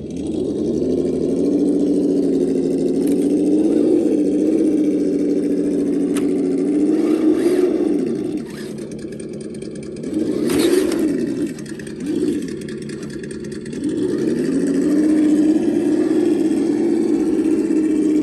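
Simulated engine sound from an engine sound simulator module's speaker on a Redcat Gen8 V2 RC crawler, following the throttle: it revs up at the start and holds, drops back to idle about halfway, gives two short revs, then pulls up again and holds.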